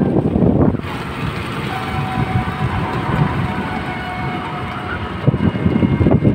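Vehicle rumbling along a road, with a few faint steady whining tones over it. The rumble eases about a second in and grows louder again near the end.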